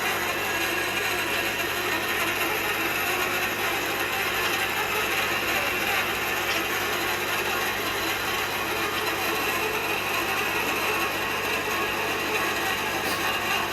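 Manual hot-tapping machine being worked by hand on a pipe: a steady mechanical ratcheting.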